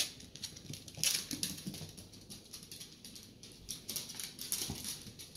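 A dachshund's claws ticking and pattering on a hard floor as it scampers across the room, in quick irregular taps, after a sharp knock right at the start.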